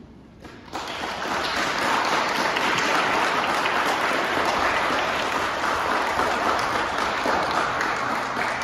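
An audience applauding, breaking out less than a second in and carrying on steadily.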